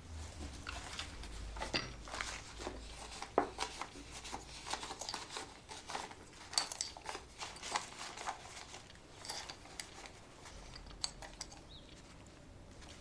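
Paper bills and banknotes rustling as they are handled, mixed with light clicks and clinks of china and a small spoon on a table.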